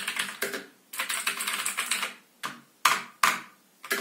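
James Donkey 610S mechanical keyboard with clicky blue switches being typed on in quick runs of keystrokes with short pauses between them. Two louder single key strikes come about three seconds in.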